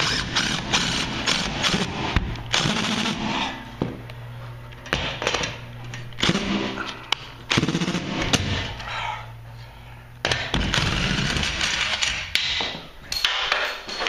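Impact driver hammering in several runs of rapid blows with short pauses between them, driving a long screw through a garage door's perforated-angle rear hanger into the ceiling.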